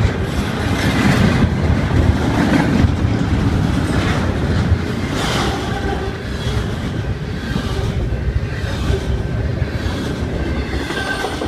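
Double-stack container train's well cars rolling past close by: a loud, steady rumble of steel wheels on rail, broken by repeated clacks as the trucks pass over rail joints.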